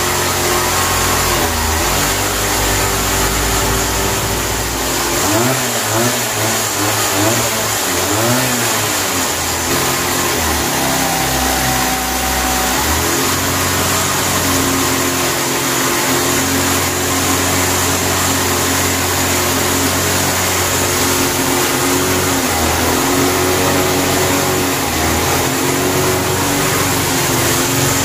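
A homemade excavator's engine running steadily, its pitch rising and falling several times about five to nine seconds in and shifting again later, as the revs change.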